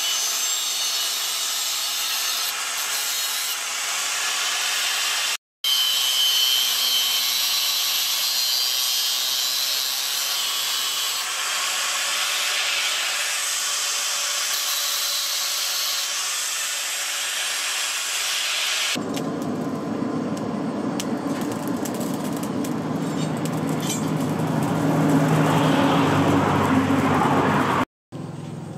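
Electric angle grinder with a thin cut-off disc cutting through a steel chainsaw bar: a steady, high-pitched grinding hiss, broken off briefly about five seconds in. From about nineteen seconds the sound turns lower and coarser and grows louder, then stops abruptly near the end.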